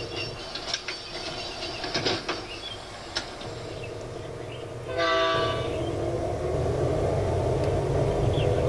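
Scattered light clicks, then one short train horn blast about five seconds in, followed by the steady running rumble of a train.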